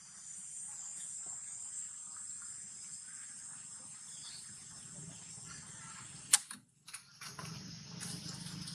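Steady high-pitched insect chorus made of several held tones. About two-thirds of the way through there is a single sharp click, and the sound drops out briefly right after it.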